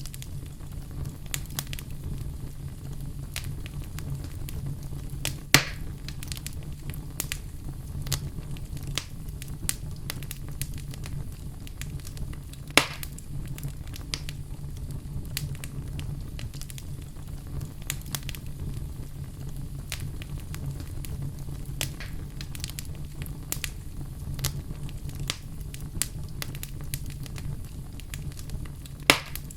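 Wood fire crackling, with scattered sharp pops over a low steady rumble; the loudest pops come about five seconds in, around thirteen seconds in, and near the end.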